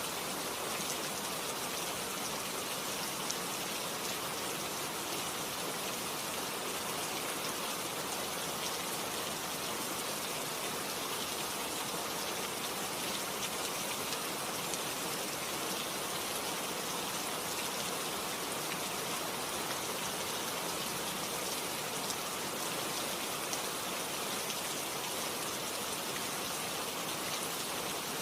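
Steady rain falling in a forest, dense drops pattering on leaves and other surfaces.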